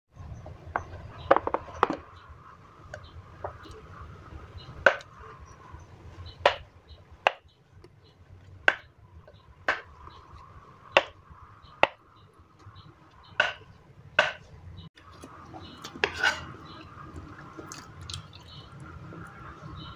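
Knife cutting blocks of tofu into cubes, the blade knocking sharply on a wooden cutting board about once a second, with a few quick strokes close together and a short pause.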